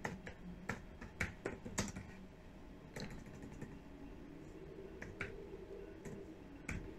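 Faint keystrokes on a computer keyboard. There is a quick run of taps in the first two seconds, then a few scattered ones.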